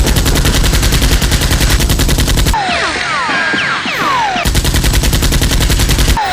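Automatic-gunfire sound effect in two long rapid bursts, the second starting about halfway through. Each burst is followed by several quick falling whistles, with music underneath.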